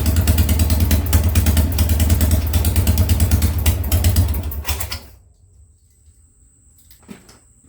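Harley-Davidson Sportster's air-cooled V-twin running on its first start after a top-end rebuild, with a slight misfire from the rear cylinder's coil. The engine shuts off and winds down about five seconds in. A faint steady high tone and a few faint clicks follow.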